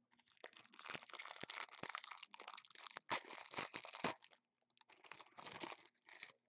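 A shiny plastic wrapper on a pack of 2015 Prestige football cards being torn open and crumpled by hand: a dense crackling rustle for about four seconds, then a second shorter stretch of crinkling.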